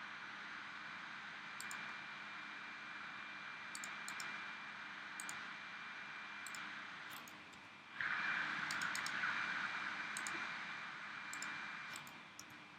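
Scattered single clicks of a computer mouse during CAD drafting, over a steady background hiss that grows louder for about four seconds from about eight seconds in.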